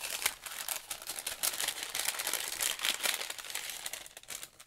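Paper packaging crinkling and rustling as it is handled and opened, a dense run of small crackles throughout. A striped paper bag is among the packaging.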